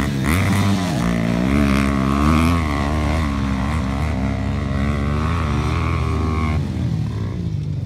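Dirt-bike engines revving hard, their pitch rising and falling as the riders throttle and shift. The loudest engine drops away about six and a half seconds in.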